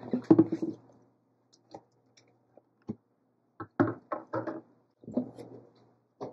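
Handling a roll of laminated posters and a mailing tube on a wooden workbench: clusters of knocks and crinkling plastic-sheet rustles at the start and again a little past halfway, with a few single taps between.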